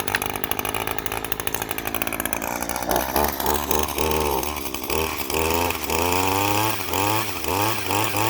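Echo power pruner's two-stroke engine, just started cold and warming up: it idles, then from about three seconds in is revved in a string of short throttle bursts, each rising in pitch.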